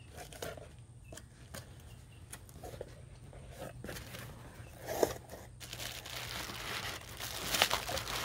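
A folding knife slitting the tape on a cardboard shipping box and the flaps being pulled open, small scrapes and clicks with one sharp crack about five seconds in. Then plastic air-pillow packing crinkles loudly as it is handled.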